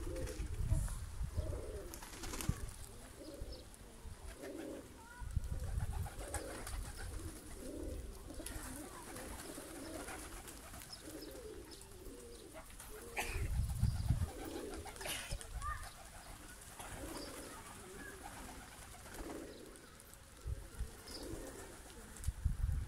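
Domestic pigeons cooing over and over, short low calls following one another throughout. A few low rumbles on the microphone break in at intervals.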